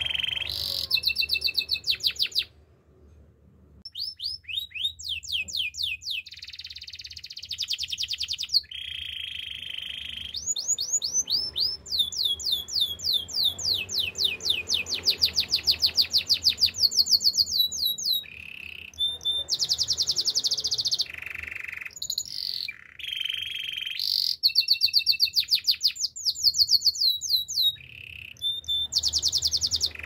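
A domestic canary singing a long song of rapid trills: phrases of quick repeated chirps, some sweeping and some buzzy, one after another, with a short break about three seconds in.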